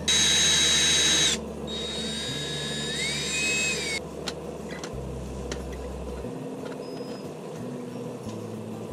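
Small power drill running in two short bursts. The first is loud and steady for about a second and a half; the second, after a brief gap, has a whine that rises and then drops off about four seconds in.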